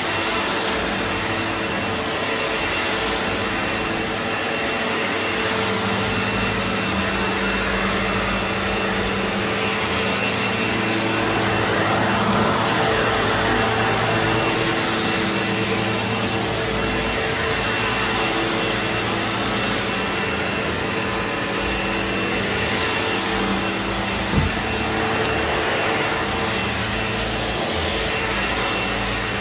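SEBO Automatic upright vacuum cleaner running steadily as it is pushed over carpet, its hum shifting slightly with the strokes, with one short knock late on.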